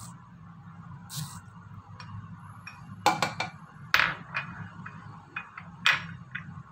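Wooden spoon scraping and knocking against a small bowl and a blender cup while food is spooned in: a few sharp knocks, the loudest about three, four and six seconds in, over a low steady hum.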